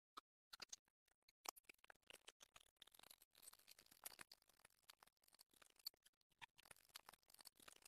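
Faint scraping and small clicks of a metal palette knife pressing and smearing soft clay on a hard surface.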